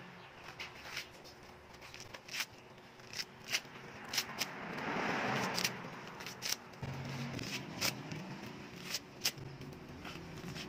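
Dry coconut husk fibres being pulled and torn away by hand: irregular sharp snaps and crackles with scratchy rustling, swelling briefly about halfway through.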